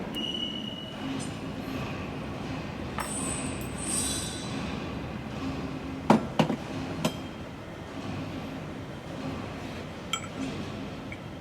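Metal-on-metal clinks and knocks from tools and parts being handled during press brake assembly work. A quick cluster of three or four sharp knocks comes about six to seven seconds in, with lighter clicks before and after, over a steady low workshop hum.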